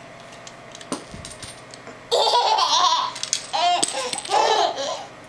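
Infant laughing in three bouts, starting about two seconds in.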